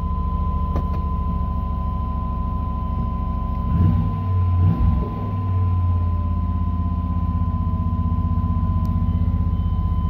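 A Chevy Tahoe's 5.7-litre V8 idles steadily and fast, at about 1,500 rpm, just after a cold start. About four seconds in there is a brief louder low rumbling.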